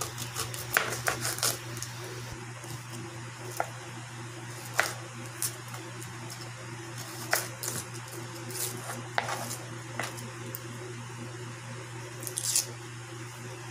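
Kitchen knife clicking and scraping on a plastic cutting board as an onion is peeled and trimmed: scattered short clicks and taps, several a few seconds apart, over a steady low hum.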